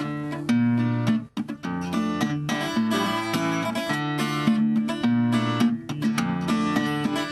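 Acoustic guitar playing the instrumental introduction to a bard song, a steady run of plucked notes and chords.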